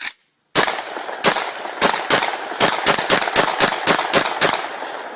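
Shotgun firing: a short click, then a few spaced shots and a rapid string of about five shots a second, about fourteen in all. The echo fades after the last shot.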